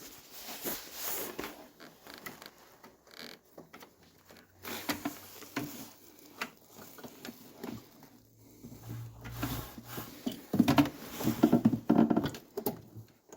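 Irregular clicks, scrapes and rustles of plastic parts and wiring being handled, with a few sharper knocks.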